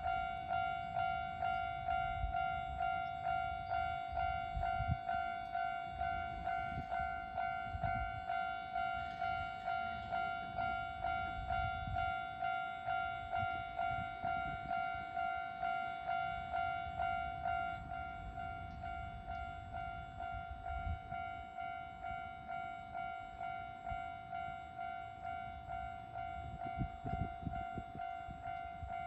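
Japanese level-crossing warning bell ringing over and over, about one and a half dings a second, while an Enshu Railway electric train rumbles through the crossing with low knocks from its wheels.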